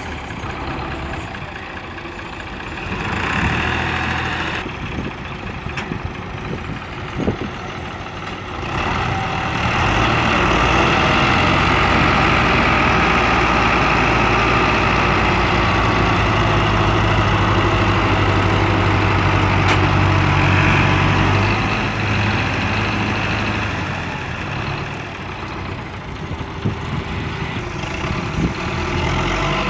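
Diesel tractor engines running under heavy load while pulling a loaded trolley; the engine note grows louder about a third of the way in, holds for around twelve seconds, then eases.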